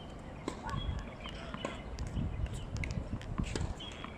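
Scattered light taps and knocks of tennis balls bouncing and footsteps on a hard court, over a low uneven rumble.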